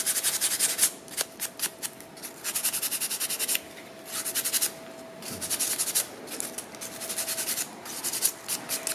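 Fine 240-grit sandpaper rubbed over the tip of a wooden fork in quick short strokes, in bursts of about a second with brief pauses between. This is the final light sanding that smooths the rough surface left after reshaping a chipped tine.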